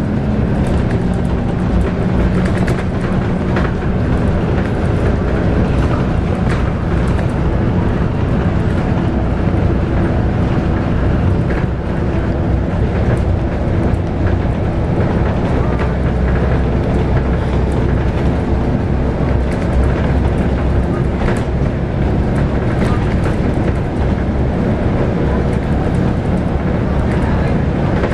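Scania K280UB bus with its 9.3-litre five-cylinder Scania DC9 diesel running under way, heard from on board: a steady low engine note mixed with road rumble and scattered short rattles.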